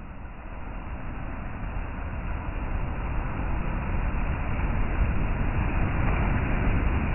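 Lake waves breaking and washing up a pebble beach: a steady rushing noise with a deep rumble underneath, growing steadily louder throughout.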